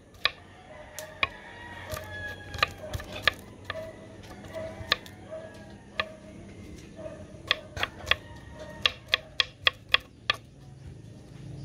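Chef's knife chopping garlic cloves on a wooden cutting board: sharp knocks of the blade on the board, spaced out at first and coming quicker, about four a second, in a run near the end.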